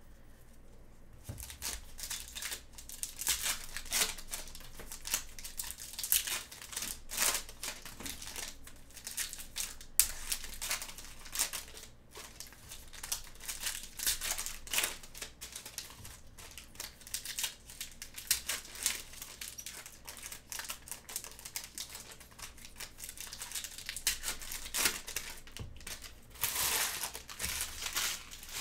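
Foil baseball card packs being crinkled and torn open by gloved hands, with cards handled in between: irregular crackling rustles, a sharp click about ten seconds in and a longer crinkle near the end.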